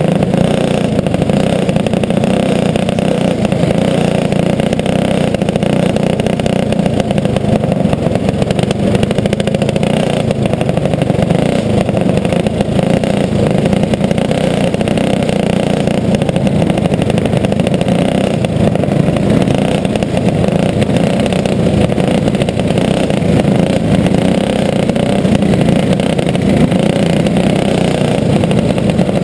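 Onboard sound of a racing go-kart's single-cylinder flathead four-stroke engine running under power, loud and steady, with other karts' engines mixed in around it.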